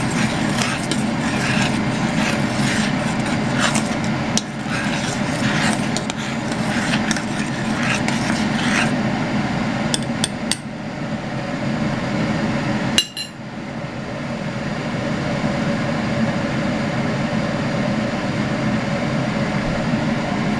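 Elderberry syrup bubbling in a pot on the stove, with quick popping clicks over a steady hum. The popping thins out after about nine seconds, and there is one sharp click just after thirteen seconds.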